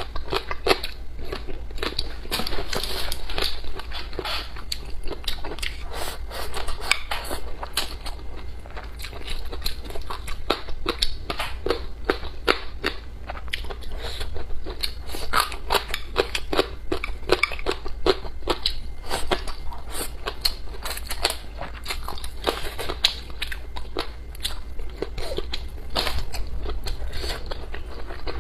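Close-miked eating: a person biting and chewing braised pork and vegetables, a steady stream of short crunches and mouth clicks.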